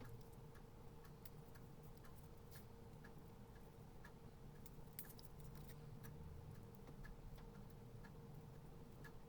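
Faint, irregular small clicks and ticks over a low steady hum.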